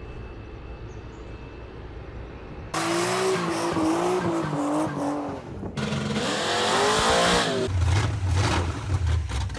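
Car tyres squealing with an engine running. The squeal wavers in pitch and starts abruptly about three seconds in, after a low rumble; near the end it gives way to a lower, steady engine hum.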